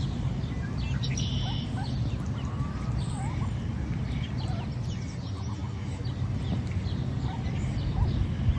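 Birds chirping: many short, high peeps scattered throughout, with a few longer curved calls, over a steady low rumble.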